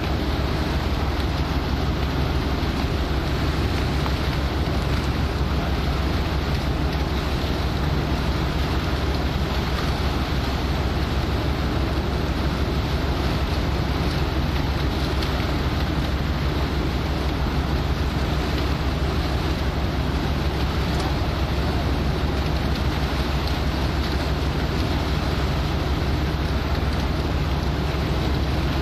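Steady low drone of a boat's engine at sea, mixed with the rush of water and wind buffeting the microphone, holding even throughout.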